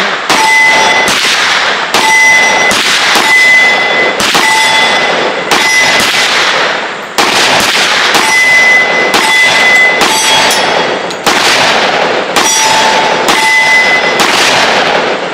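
Smith & Wesson M&P 10mm pistol firing about twenty shots at a steady pace, with a brief pause about seven seconds in. Many shots are followed by the bright ring of a bullet hitting a steel target plate.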